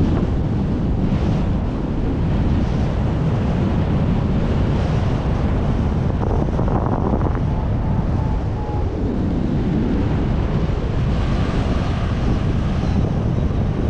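Heavy wind buffeting the microphone: a loud, steady low rush throughout. Faint short beeps at one pitch come a little past halfway and again near the end.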